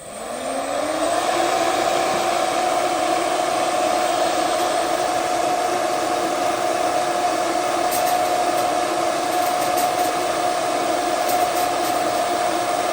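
Lift ducted fan of a 3D printed hovercraft, driven by a 2300 KV brushless motor on a 3S battery, spinning up over about a second and then running steadily at low throttle with a level whine over a rush of air.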